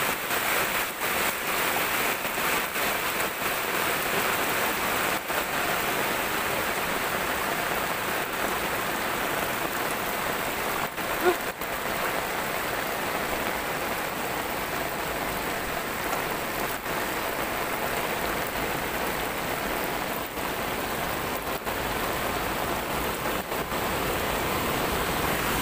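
Heavy rain falling steadily, with muddy floodwater running across a dirt road. There is one brief knock about eleven seconds in.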